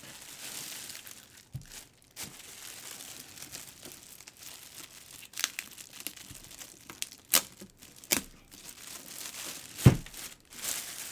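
Plastic packaging crinkling and rustling as it is handled, broken by several clicks and knocks, the loudest a dull thump near the end.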